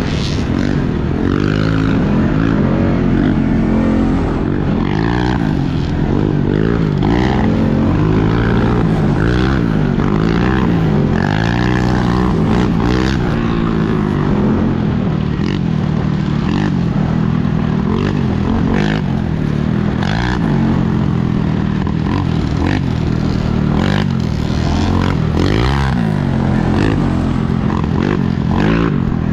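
Off-road vehicle engine running hard on a trail, its pitch rising and falling again and again with the throttle, with scattered knocks and scrapes.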